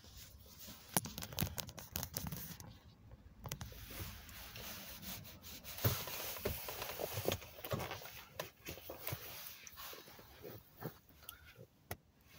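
Handling noise from a phone being moved around and repositioned: rubbing and scraping against the microphone, with many irregular clicks and knocks.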